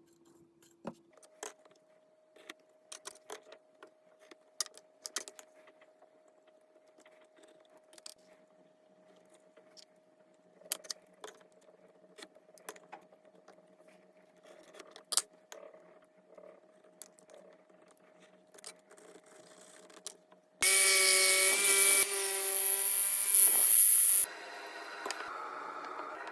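Tools and wood handled, with scattered light clicks and knocks, then a power tool starts suddenly about twenty seconds in and runs loudly for a few seconds before dropping to a lower level.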